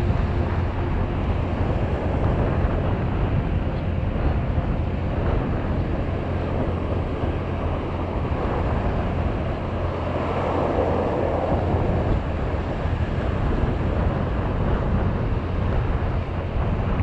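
Strong wind buffeting the microphone: a steady low rumbling noise, with a brief louder rush of noise about ten seconds in.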